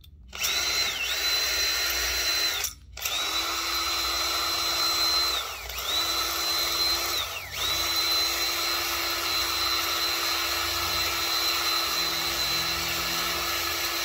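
Small power drill running, its bit cutting a groove into the plastic base of a die-cast toy car. The motor whine stops briefly about three seconds in, then twice slows and picks back up before running steadily.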